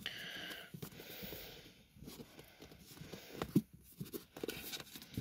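Paperback book being handled and slid against other books on a shelf: a faint scraping rustle for about the first second and a half, then scattered small taps and knocks.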